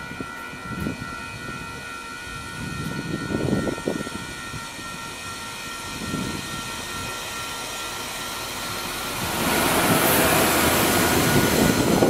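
NCTD Sprinter diesel railcar (Siemens Desiro) approaching the station, its sound growing much louder about nine and a half seconds in as it rolls past the platform.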